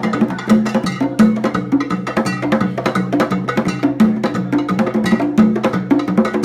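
Live band playing Latin dance music: a steady rhythm of sharp wood-block-like percussion hits over a repeating bass line.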